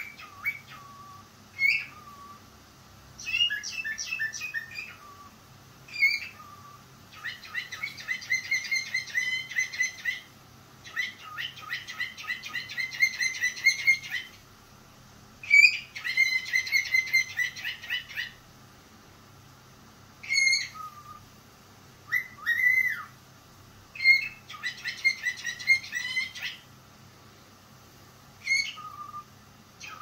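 Cockatiel chirping and warbling: short single calls alternate with longer, fast chattering phrases of a few seconds each, again and again.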